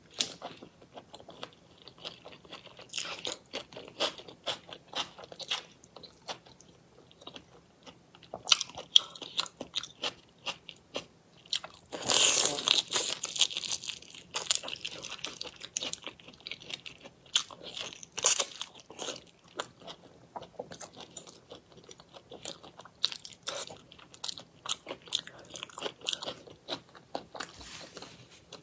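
Close-miked crunching and chewing of raw whole shrimp, many sharp wet crackles and clicks. The loudest, densest crunching comes about twelve seconds in and lasts a couple of seconds, as a shrimp is bitten into.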